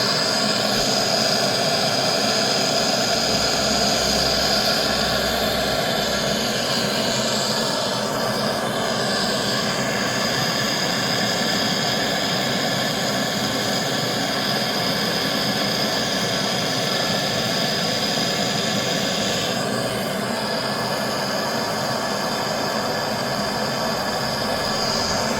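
A machine running steadily: a loud, even mechanical drone with a high steady tone on top that fades briefly twice.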